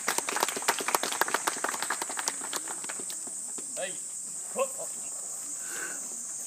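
Audience clapping, which thins out and stops about two and a half seconds in, over a steady high drone of summer insects. After the clapping a few brief voice sounds are heard.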